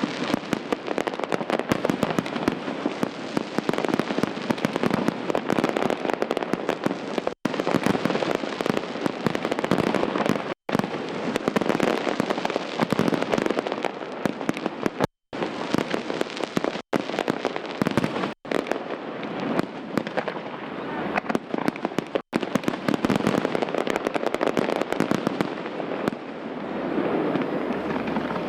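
Aerial fireworks going off in a dense barrage of bangs and crackles, many reports a second with hardly a pause. The sound cuts out completely for a split second several times, and the barrage thins near the end.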